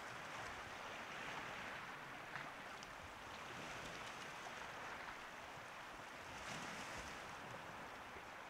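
Small waves of Lake Baikal washing on the shore: a soft, faint wash that swells and fades every two to three seconds.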